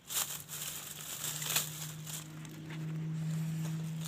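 Rustling and scraping of leaves, twigs and loose soil as a dug-up shrub is handled in its hole. A steady low hum comes in after about a second and grows louder in the second half.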